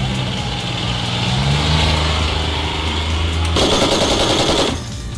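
An engine runs steadily, its pitch rising briefly about one and a half seconds in. About three and a half seconds in, a mounted machine gun fires a rapid burst lasting about a second.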